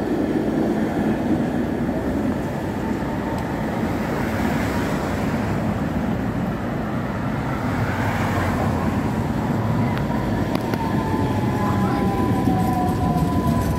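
Two coupled Tatra trams running past close by on street track, with a steady rumble from the wheels on the rails. From about ten seconds in, a whine comes in and falls steadily in pitch as the trams slow to stop.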